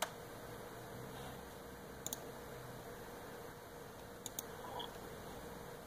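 Sharp clicks of a laptop mouse button: a single click at the start, then a quick double click about two seconds in and another about four seconds in, over a low steady hiss with a faint hum.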